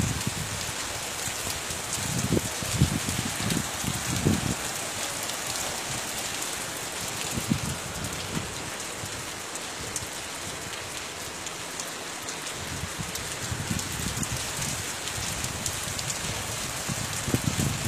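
Heavy tropical rain pouring down in a dense, steady hiss, with a few short low rumbles mixed in.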